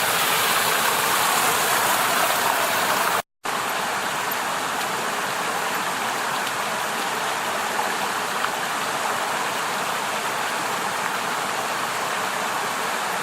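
Water rushing over a creek cascade, a steady hiss. It cuts out abruptly for a moment about three seconds in, then resumes slightly quieter.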